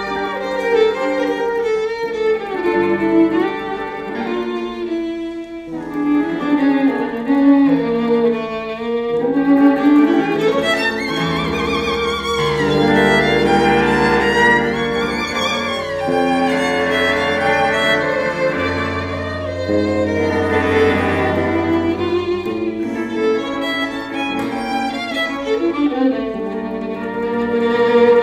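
Free-improvised ensemble music, with bowed violin and cello playing sliding, wavering lines over long held low bass notes.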